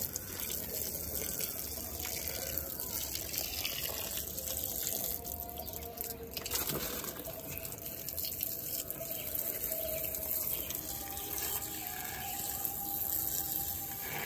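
Water spraying from a garden hose whose end is pinched with a thumb, splashing steadily onto potting soil and a concrete floor.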